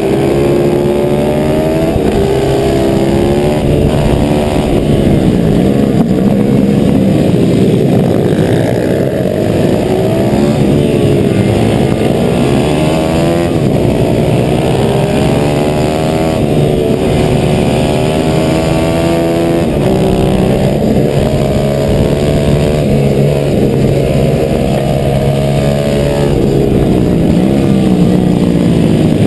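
A 140 cc single-cylinder four-stroke pit bike engine being raced hard. Its pitch rises and falls over and over as it accelerates out of corners, shifts and backs off for the next bend.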